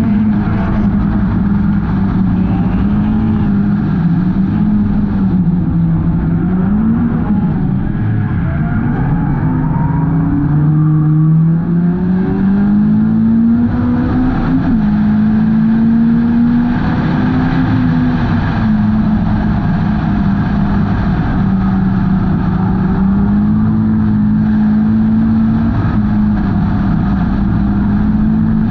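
Hornet-class race car's four-cylinder engine running hard at racing speed, its note dipping and climbing back a few times as the car lifts and accelerates through the turns.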